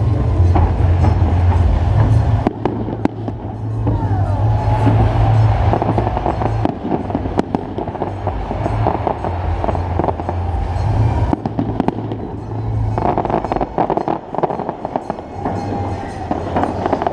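Fireworks going off in a dense barrage: a continuous heavy rumble of booms with sharp cracks throughout, and a brief falling whistle about four seconds in.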